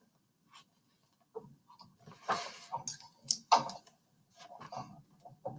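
Faint clicks and taps with a short rustle about two seconds in: a picture book being handled and a page turned.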